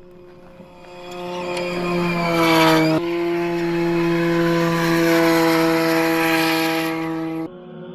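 Audi RS Q e-tron E2 rally car's electric drivetrain whining as it drives, over a rush of tyre noise. The whine drops in pitch about two to three seconds in, then holds steady before cutting off abruptly near the end.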